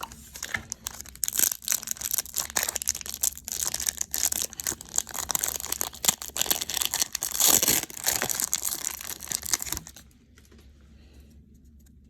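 Baseball card pack wrapper being torn open and crinkled, a dense crackling rustle of wrapper material that stops abruptly about ten seconds in.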